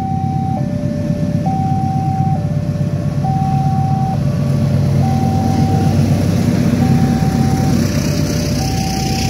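Level-crossing warning alarm sounding a high and a low tone in turn, each held a little under a second, over the heavy rumble of a diesel locomotive and its passenger train passing over the crossing. The hiss of the coaches' wheels on the rails grows near the end.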